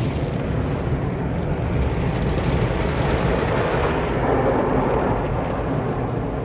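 Steady rushing, rumbling noise heard from inside a car, with no break or change in level.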